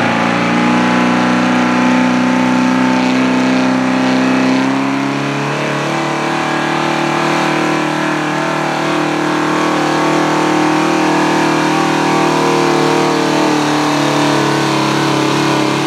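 Square-body Chevrolet pickup's engine running at high revs under full load as it drags a weight-transfer pulling sled, a loud, steady engine note whose pitch shifts about five seconds in.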